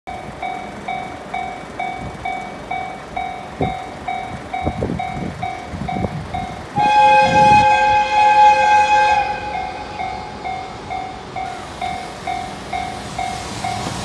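Japanese level-crossing warning bell ringing steadily at about two dings a second as an EF210 electric locomotive approaches. About seven seconds in, the locomotive sounds one long horn blast of about two and a half seconds, a warning that the uploader takes to be meant for photographers standing dangerously close.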